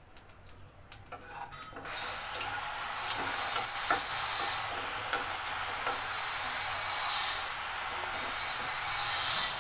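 Nigella seeds sizzling in hot mustard oil in a nonstick kadai as they are tempered, stirred with a wooden spatula. A few light taps come first, then about two seconds in the sizzle builds to a steady hiss.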